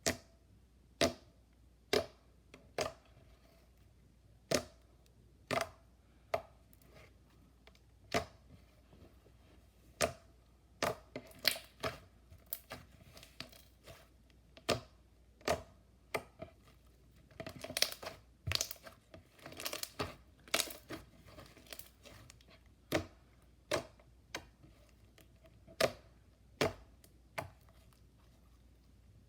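Clear slime being pressed and poked by hand, giving sharp wet pops and clicks about once a second, coming thicker and faster for a few seconds in the middle.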